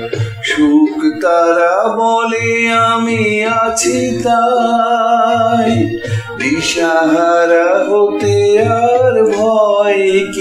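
A man singing a Bengali song in long, wavering held notes over instrumental backing with a pulsing bass line.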